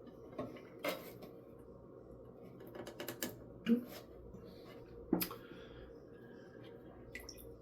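Scattered light clicks and knocks of plastic toilet-tank parts being handled, as the flush valve hose is pushed back onto its fitting.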